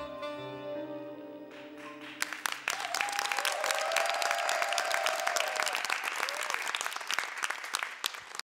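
A band's closing chord rings out and fades, then a studio audience applauds from about two seconds in; the clapping cuts off suddenly at the end.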